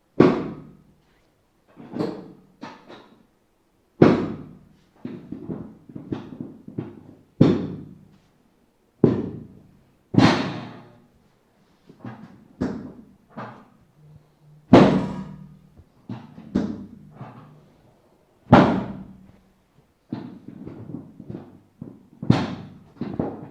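A series of loud struck thuds, irregular, about one every one to two seconds, each ringing out briefly with a low hum beneath.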